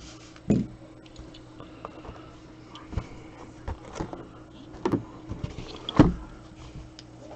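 Handling noise at a desk: a few dull knocks and small clicks, the loudest about half a second in and near six seconds, over a faint steady electrical hum.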